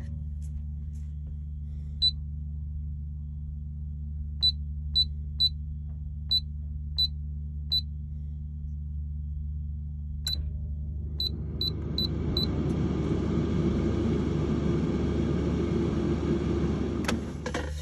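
Tower air fryer's touch control panel beeping at each button press, about a dozen short high beeps spread over the first twelve seconds, over a steady low hum. About eleven seconds in, the fryer's fan starts with a rising whir and runs steadily until it cuts off near the end.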